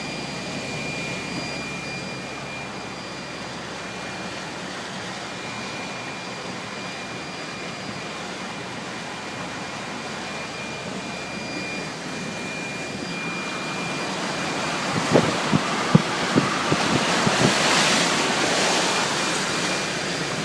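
A vehicle driving through floodwater: a steady rush of road and water noise with a faint high whine, swelling in the last several seconds into a louder splashing rush with a few knocks.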